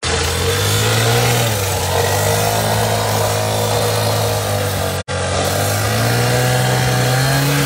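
Gasoline cut-off saw running at full speed, its abrasive disc cutting into a steel rail: a steady engine note over a harsh grinding hiss. The sound cuts out for an instant about five seconds in.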